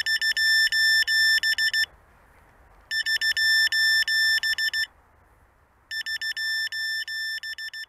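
High-pitched electronic beeper sounding in three bursts of rapid beeps, each burst about two seconds long, about a second apart.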